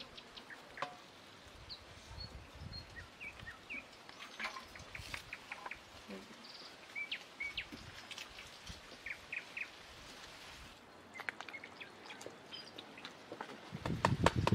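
Small birds chirping on and off over quiet outdoor background, with soft clicks and knocks of bowls being handled. Near the end, louder squishing and rubbing sounds as mashed tomato pulp is worked by hand through a plastic sieve.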